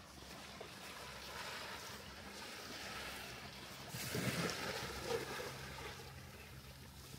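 Waterside ambience: a steady low motor hum over water noise, with a louder rush about four to five seconds in.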